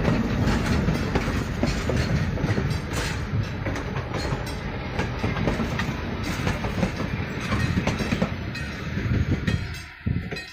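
Passenger coaches and a caboose rolling past, steel wheels rumbling and clicking over the rail joints. The sound falls away near the end as the last car clears.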